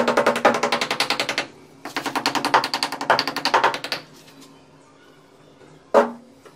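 Rapid, even tapping of a tool against a wooden form filled with fresh sand-and-cement mortar along a counter edge, about ten taps a second. The tapping comes in two bouts: the first stops about a second and a half in, and the second stops around four seconds. One sharper single knock follows near the end.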